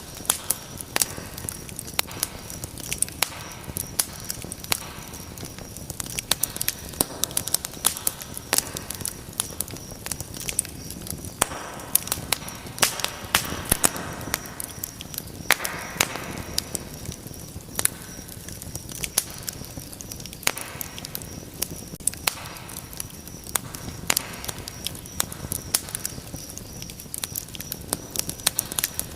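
Fire crackling in a fireplace: frequent sharp pops and snaps over a steady low rustle of flames, with a stretch of louder hissing midway.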